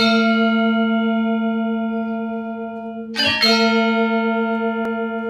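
Intro music: a ringing, bell-like note struck and left to sustain, with a fresh note struck about three seconds in.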